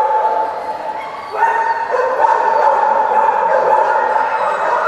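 Many dogs barking and yelping at once, a continuous din of overlapping barks.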